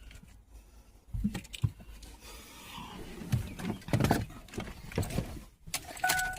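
Someone climbing into a 2004 Ford Explorer: scattered knocks, bumps and rustling, the loudest about four seconds in. Near the end a short steady electronic warning chime sounds once, as the key goes in before starting.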